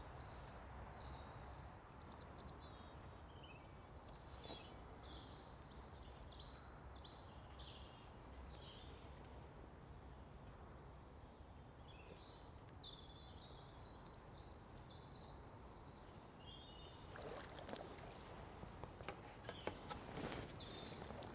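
Small birds singing faintly in short, high chirping phrases over a steady low background rush. In the last few seconds there is splashing as a hooked chub is drawn over the landing net.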